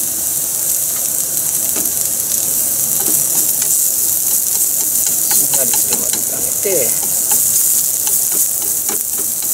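Julienned carrot and green pepper sizzling as they stir-fry in a nonstick frying pan, with a steady hiss. Long wooden cooking chopsticks tap and scrape against the pan as the vegetables are tossed, in scattered clicks from about three seconds in.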